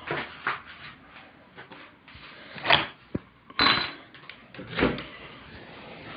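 A handful of short knocks and scuffs, the sharpest and loudest one about three and a half seconds in.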